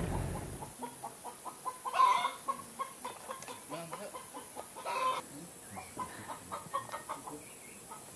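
Chickens clucking in short, irregular calls, with louder calls about two seconds and five seconds in. A low rumble dies away in the first second.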